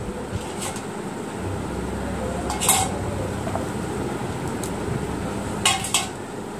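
A metal strainer knocking and clinking against a metal plate a few times as parboiled potato sticks are tipped out onto paper towels: one light clink about a second in, the loudest about three seconds in, and two close together near the end.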